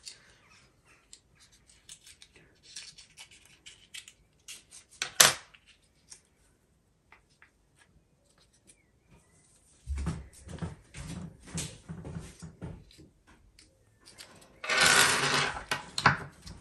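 Hands and small scissors working a ball python egg: faint scattered clicks and rustles, with one sharp click about five seconds in, where the scissors are set down on the table. From about ten seconds on, louder rubbing and rustling of handling, loudest near the end.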